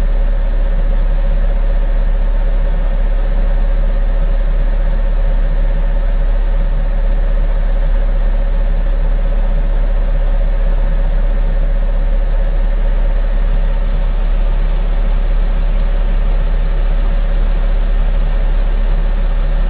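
Heavy diesel engine of an armoured vehicle idling steadily: a strong low rumble with a constant mid-pitched whine over it.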